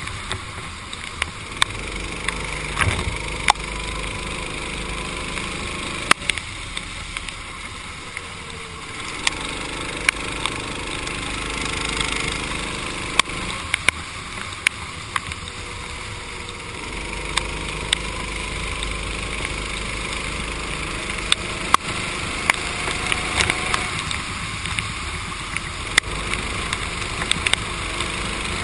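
Racing kart engine running under load, its pitch rising and falling as the kart speeds up and slows, under a steady hiss of tyre spray and rushing air on a wet track, with frequent sharp ticks.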